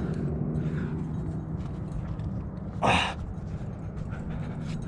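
A climber's single heavy breath out, short and sharp, about three seconds in, over a low steady hum.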